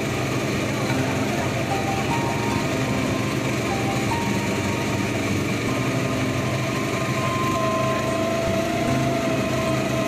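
Engine of a long river passenger boat running steadily under way, with water rushing along the hull.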